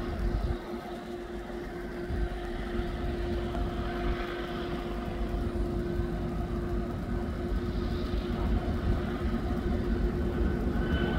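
Diesel locomotives of a BNSF freight train working upgrade: a steady engine drone with a held whine over a low rumble, slowly growing louder as the train approaches.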